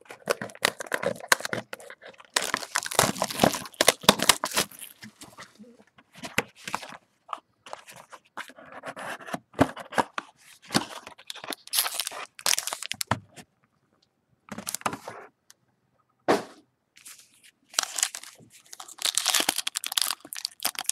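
A sealed trading-card box and the wrapped packs inside being torn open and handled: irregular tearing, crinkling and scraping of wrapper and cardboard, with a short pause a little past halfway.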